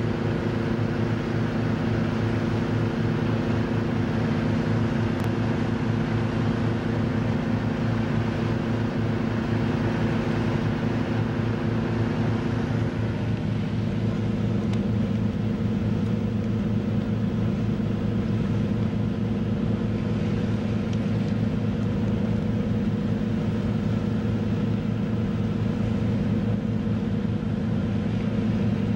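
Boat engine running steadily: a continuous low drone with a few steady hum tones over a wash of noise. The tone shifts slightly about halfway through.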